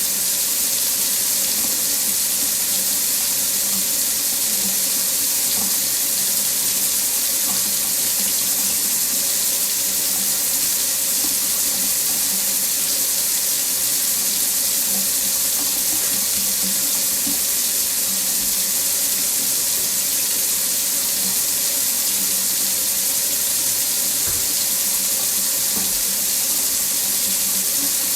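Water running steadily from a faucet into a sink, a constant splashing rush with no change.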